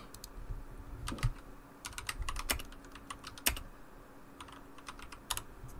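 Typing on a computer keyboard: irregular bursts of key clicks as a search is typed in.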